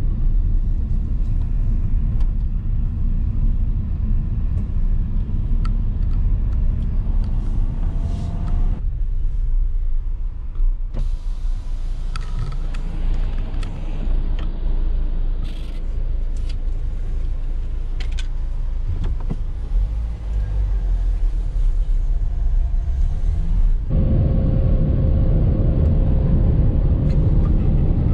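Van engine and road rumble heard inside the cabin while driving. About nine seconds in it drops to a quieter engine idle with a few clicks, with the driver's window open at a toll ticket machine. From about 24 seconds the steady driving rumble returns.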